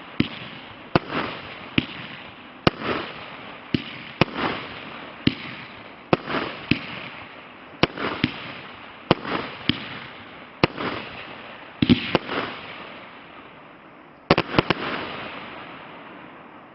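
A 36-shot firework cake firing shot after shot, about one a second: each sharp bang is followed by a hissing burst that fades. A quick cluster of bangs comes near the end, then the last burst hisses away.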